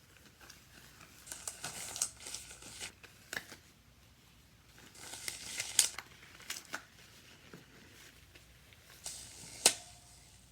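Hands handling ingredient containers and kitchen utensils: three bouts of rustling and crinkling with sharp taps. The loudest tap comes near the end and rings briefly.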